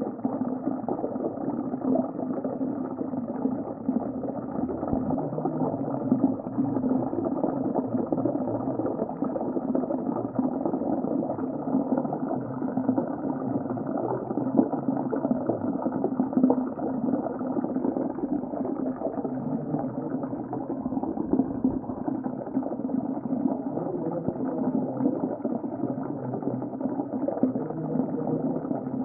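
Muffled underwater ambience: a steady, dull rush of water with a fine, dense crackle, and no clear calls or events standing out.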